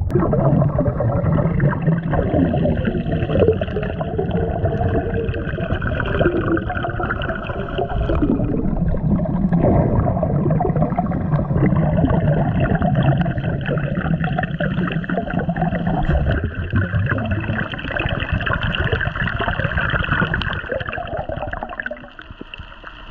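Water gurgling and bubbling, loud and continuous, fading down a little before the end.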